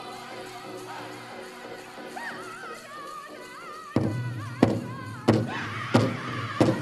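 Powwow drum group singing a chicken dance song in high, wavering voices. About four seconds in, the big drum comes in with heavy, even beats, about one and a half a second.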